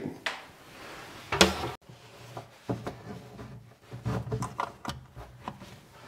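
Handling sounds of a mains plug and its cable being pushed into a socket at the back of a built-in cabinet niche: scattered soft knocks and scrapes against the cabinet panels, with a sharper knock about one and a half seconds in.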